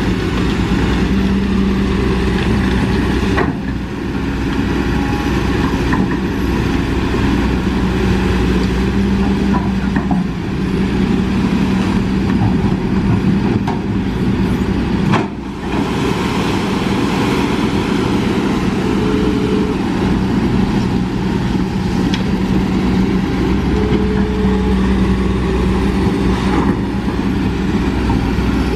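Diesel engines of a Kobelco SK200 hydraulic excavator and a dump truck running steadily at close range, a continuous low hum that dips briefly twice.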